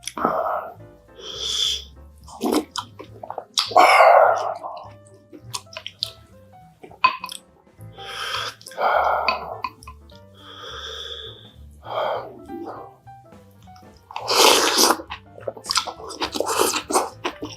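Close-miked eating: crisp clicks of chewing on rice and bean sprouts, broken by a few louder wet bursts, the loudest about four seconds in and again near the end.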